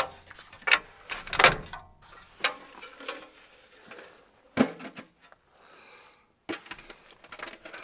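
Aluminum folding step stool being unfolded and set in place: sharp metal clacks and clicks as its frame swings open and locks, in a quick run over the first few seconds, then two more separate knocks later.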